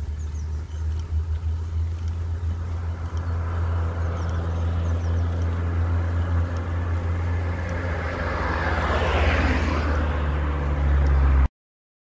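Motor vehicle engine running with a steady low drone that grows louder, passing close by about nine seconds in with a rush of tyre noise. Faint bird chirps high above early on. The sound cuts off suddenly near the end.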